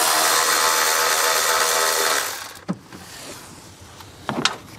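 Milwaukee cordless electric ratchet running steadily for about two seconds as it backs out an 8 mm engine-cover bolt, then stopping suddenly; a few light clicks and knocks from handling the tool and bolt follow.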